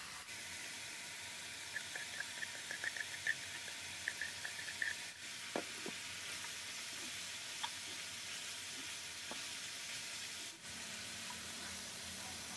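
Konjac noodles sizzling steadily as they stir-fry in an oiled pan, with short clicks and taps from a wooden spatula working them, most of them in the first half.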